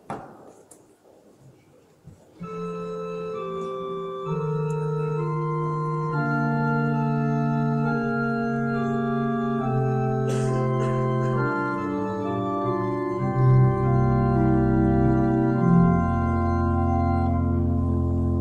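After a knock and about two seconds of quiet, a church organ begins playing slow, held chords. Deeper bass notes come in and grow stronger in the last few seconds.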